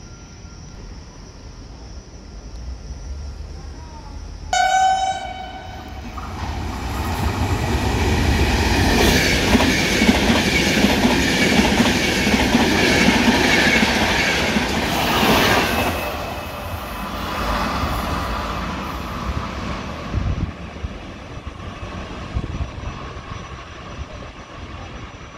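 A passenger train of Intercity coaches running through a station at speed: one short horn blast of about a second, then the loud rush and wheel clatter of the coaches passing, which fades over the last several seconds.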